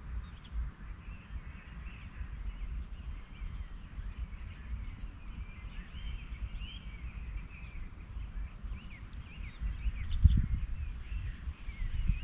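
Birds chirping over a steady low rumble, with one louder low thump about ten seconds in.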